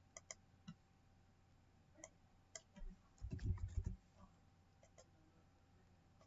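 Faint, scattered small clicks, with a brief cluster of soft low thuds about three and a half seconds in.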